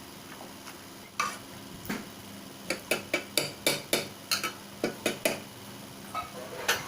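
A mathu, the traditional wooden hand masher, mashing boiled gongura (sorrel) leaves in the metal cooker pot. It knocks against the pot in a quick run of about a dozen strikes, with a few single knocks before and after.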